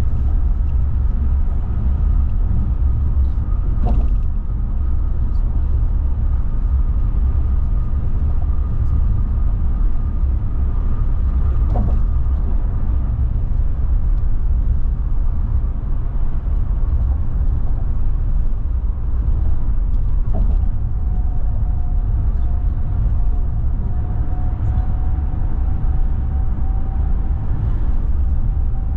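Steady low road rumble of a car driving at highway speed, heard from inside the cabin, with a faint steady whine over it and a couple of light clicks.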